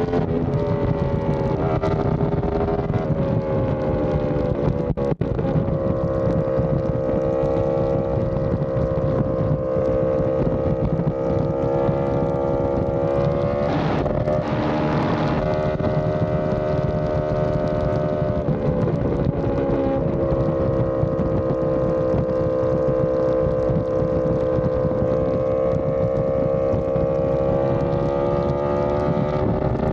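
Yamaha R1M's crossplane inline-four with an SC Project exhaust running at steady highway revs, its pitch drifting slightly, with wind noise. There is a brief drop in the sound about five seconds in and a short burst of rushing noise around fourteen seconds in.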